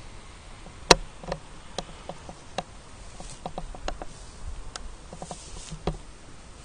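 Lit smoke grenade spitting out coloured smoke, with irregular sharp crackles and pops. The loudest pop comes about a second in, and smaller ones are scattered throughout.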